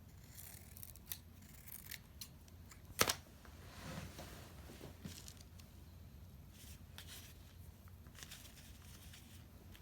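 Scissors snipping thin paper, cutting out small triangles: a string of short, irregular snips with some paper rustling, the sharpest about three seconds in.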